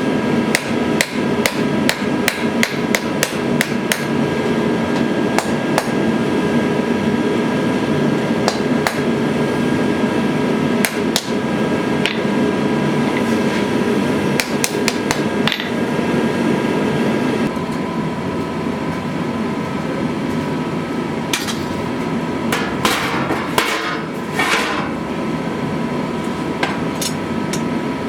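Hammer blows on a steel knife blade being forged, in quick irregular runs of strikes that thin out about two-thirds of the way through, over a steady background noise.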